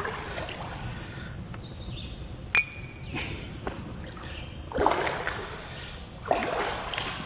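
Boots wading through shallow water, sloshing and splashing with each step in uneven swishes, the loudest two near the end. One sharp click sounds just before the middle.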